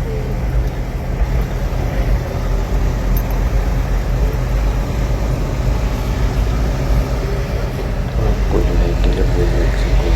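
Steady low rumble of a motor vehicle's engine, with a few faint tones coming in near the end.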